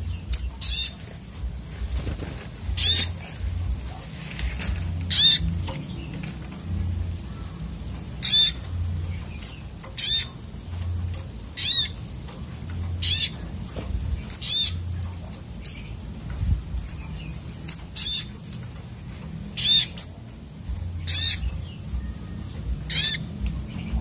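Olive-backed sunbirds in an aviary calling: short, high, quavering calls, one every one to two seconds at irregular intervals.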